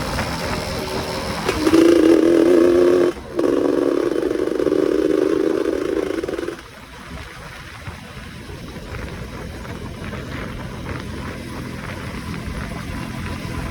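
Yamaha F1ZR two-stroke moped engine running under way, with a loud, steady engine note from about two seconds in that cuts off abruptly near the middle, leaving quieter running and road noise.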